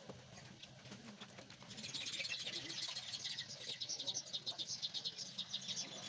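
Birds chirping: a dense, irregular run of short high-pitched chirps that starts about two seconds in and keeps going.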